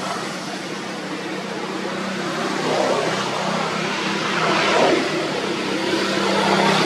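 A motor vehicle engine running steadily, giving a low, even drone.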